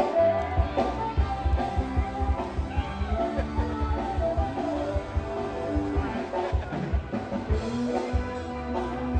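Upbeat rock and roll music with a drum kit and guitar and a steady beat.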